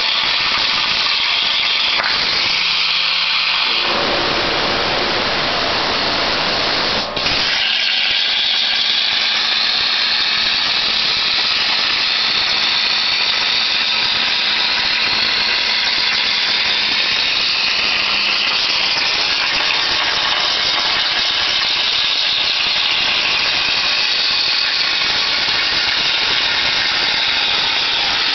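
CNC plasma torch cutting metal plate: the plasma arc gives a loud, steady hiss, with a brief break about seven seconds in.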